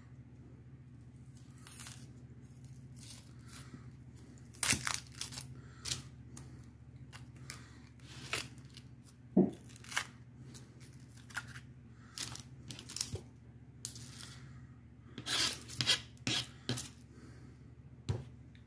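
Dry papery onion skin being peeled off by hand, crackling and tearing in short irregular bursts, with an occasional light knock of the onion against a plastic cutting board.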